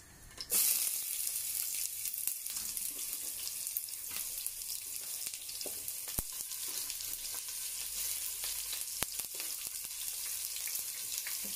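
Sliced onions sizzling in hot ghee in a pressure cooker and a frying pan: a steady frying hiss that starts suddenly about half a second in as the onions go in. Two sharp clicks partway through.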